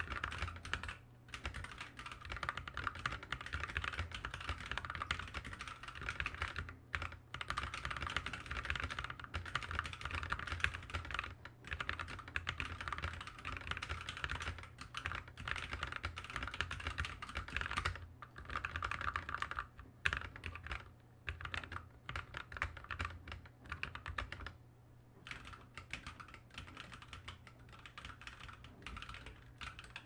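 Fast, continuous touch-typing on a ZSA Moonlander split mechanical keyboard with Kailh Box Black linear switches, one half lubed and the other unlubed, a dense stream of keystroke clacks with a few short pauses. A deep bass boom from the desk resonates under the keystrokes. The typing goes softer for the last few seconds.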